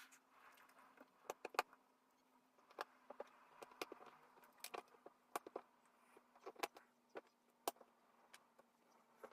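Cardboard jigsaw puzzle pieces being handled, with irregular light clicks and taps as pieces are picked up and set down on a table. A faint steady hum runs underneath.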